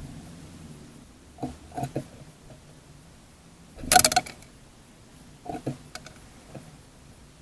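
Small garden birds at a feeder tray: a few quick tapping clicks, a louder brief scuffle about four seconds in, then more clicks.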